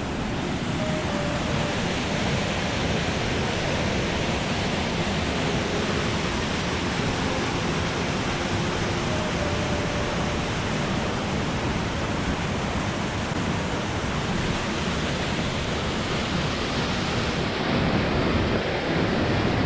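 Waterfall and rushing creek water making a steady, even rush that grows a little louder near the end.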